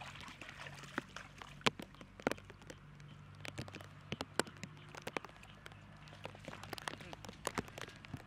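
Water splashing and dripping with many scattered sharp taps as a wet net trap is handled over a shallow pond outflow, over a steady low hum.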